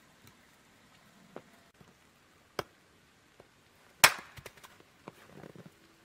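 Hatchet chopping a piece of firewood set upright on a wooden chopping stump. A lighter knock comes about two and a half seconds in, then one loud sharp chop about four seconds in that splits the wood, followed by a few small knocks and a short clatter as the split pieces fall.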